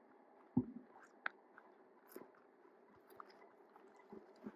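Faint handling noise: a soft low thump about half a second in, then scattered small clicks and crackles. No gunshot is heard.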